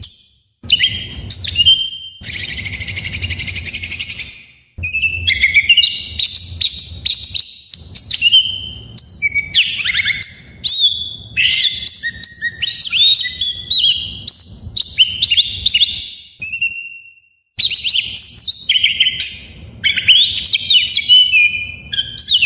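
Oriental magpie-robin singing a loud, fast, varied song of whistles, chirps and sweeping glides, with a dense buzzy rattle about two seconds in and a couple of brief pauses.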